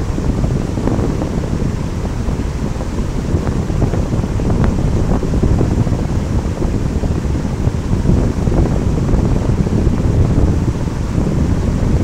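Old Courtallam waterfall in heavy flow: a steady, loud rush of falling water, deepest in the low end, with wind noise on the microphone from the blowing spray.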